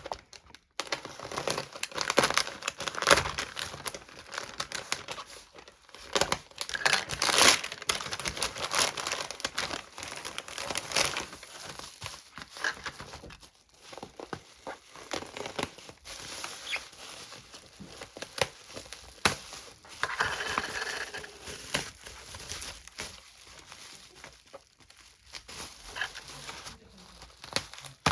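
Packaging being unwrapped by hand: irregular crinkling and rustling with occasional tearing.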